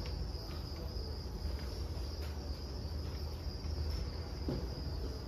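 Crickets chirping in a steady high-pitched trill, over a low steady rumble.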